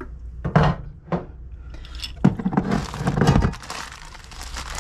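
Things being shifted on a pantry shelf: several sharp knocks and clinks of glass jars and cans against the shelf and each other, with a stretch of scraping and rustling in the middle as items are slid aside.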